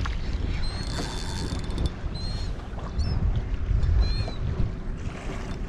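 Wind on the microphone and small waves slapping against a kayak's hull, a steady low rush of noise that swells and eases.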